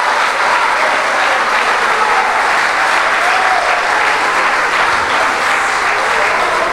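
A congregation applauding steadily, with a few voices calling out faintly over the clapping.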